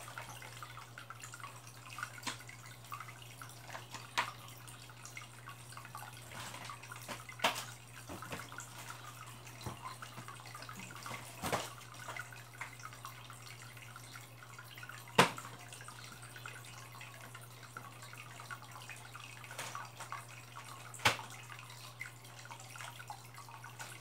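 Water dripping into an aquarium: single drops plink into the water at irregular intervals a few seconds apart, two of them sharper, about two-thirds of the way through and near the end. A steady low hum runs underneath.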